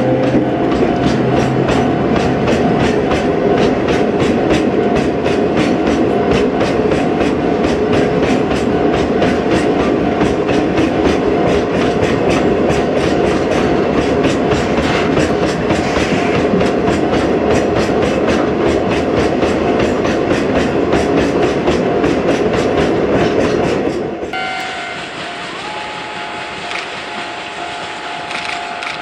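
Chichibu Railway ヲキ-series hopper wagons rolling past close by: a loud, steady clickety-clack of wheels over rail joints over the rumble of the train. About 24 s in, the sound drops to a quieter, more distant train, with the steady ringing tones of a level-crossing alarm.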